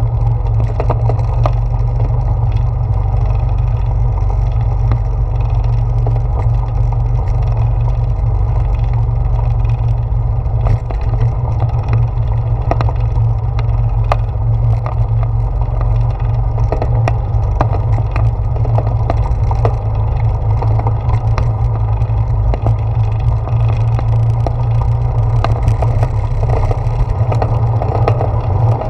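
Bicycle tyres rolling over wooden boardwalk planks, heard through a handlebar-mounted GoPro: a steady low rumble with many irregular clicks and knocks as the wheels cross the boards.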